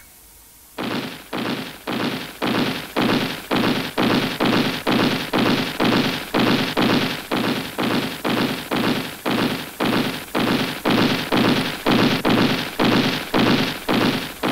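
Cartoon sound effect: an even run of heavy thuds, about two and a half a second, starting just under a second in.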